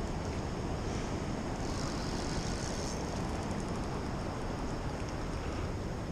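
Fast-flowing river water rushing steadily: a constant, even roar with a few faint ticks.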